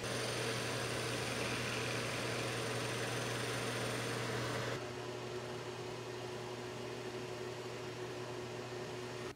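Shop vacuum and an electric furnace motor running steadily while the motor spins a shaft and a chisel turns a plywood pulley down to size on it: a continuous hum and hiss. About five seconds in the sound drops abruptly and shifts to a lower, plainer hum.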